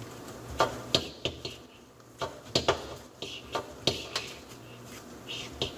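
Sink drain trap being fitted back on and its slip nuts tightened by hand: a string of irregular knocks and clicks of the parts against each other.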